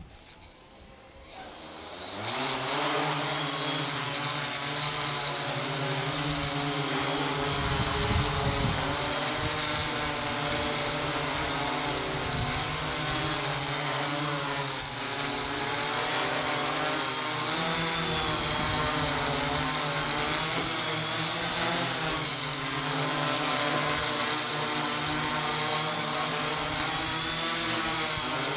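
Hexacopter's six electric motors and propellers spinning up over about two seconds, then a steady multirotor buzz with a high whine on top. The buzz wavers up and down in pitch as the flight controller keeps changing motor speeds on a craft that, in the owner's words, has a mind of its own.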